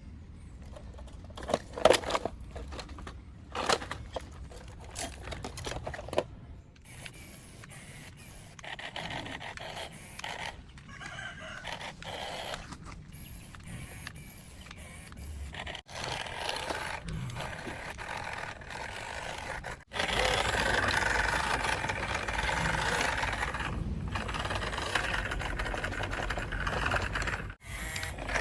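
Plastic RC toy truck being handled and run: a few sharp knocks of plastic parts early on, then steady scraping and whirring noise that gets louder after about twenty seconds.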